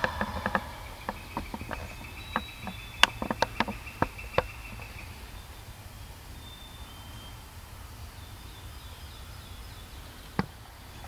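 A run of sharp clicks and snaps over the first four or five seconds, with a high steady trill at the same time, then faint short high calls and one more click near the end.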